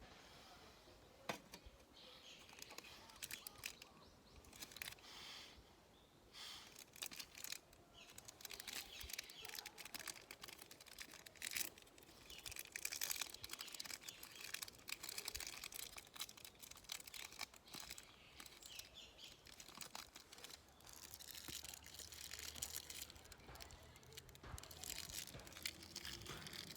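Faint rustling and crinkling, with many irregular small clicks, as of things being handled. A low steady hum comes in about twenty seconds in.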